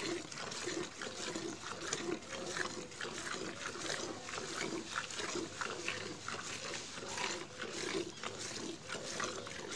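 Hand-milking a cow into a steel bucket: milk squirting from the teats into the pail in quick alternating strokes, about two or three squirts a second.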